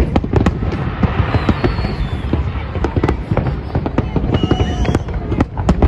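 Fireworks display: a rapid series of sharp bangs, with a dense stretch of crackling about a second in.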